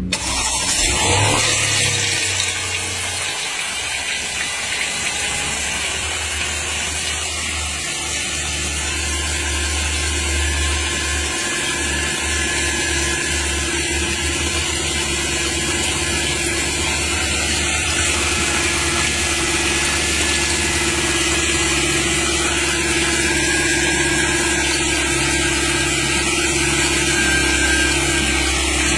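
Car engine running steadily with a constant whining tone over its hum, an abnormal noise put down to the oil pump, a possible early sign of low oil pressure.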